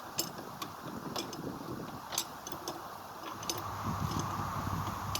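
Scattered light metallic clicks and taps of hand tools and pump parts being handled during reassembly. A steady low hum comes in about three and a half seconds in.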